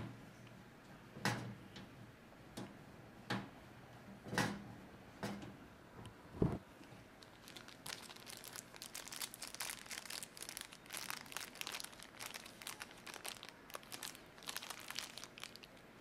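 Separate light clicks and knocks of screws and a screwdriver on a motherboard in a steel PC case. Then, from about halfway through, a long stretch of crinkling rustle.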